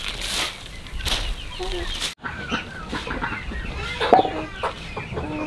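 Gloved hands tossing and mixing a heap of chopped plant matter on a tarp, a dry rustling swish with each of a few tosses. After a sudden cut about two seconds in, chickens cluck.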